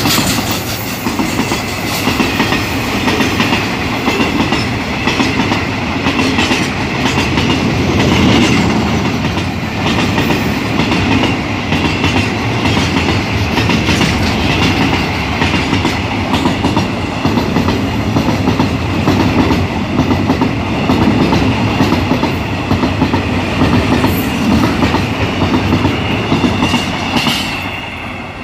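Railway tank wagons of a freight train rolling past close by, their wheels clicking over the rail joints with a thin high squeal running through. The sound eases off near the end as the brake van goes by.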